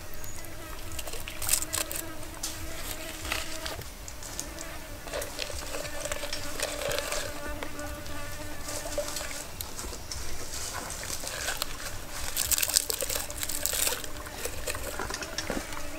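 A flying insect buzzing close by, a thin hum that wavers in pitch and comes and goes. Soft clicks and rustles of hands working lemongrass stalks into a raw whole chicken, with a burst of crackly rustling about twelve seconds in.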